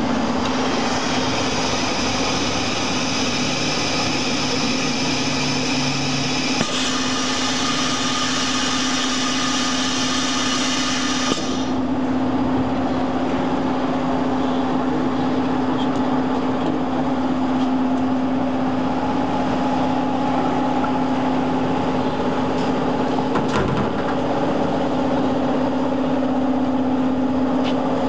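Steady machine hum with a strong low drone, from machinery running. A higher whine over it cuts off suddenly about eleven seconds in, and there are a couple of faint knocks.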